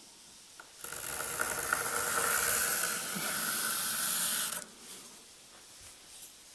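A scribe drawn along a wooden door jamb, its pencil and guide scraping over the wood in one continuous stroke of about four seconds that starts about a second in and stops abruptly. It is marking a 3/16-inch reveal line for the casing.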